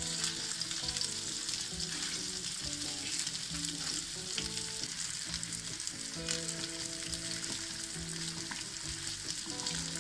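Köfte (minced-meat patties) frying in a little oil in a nonstick pan: a steady sizzling hiss.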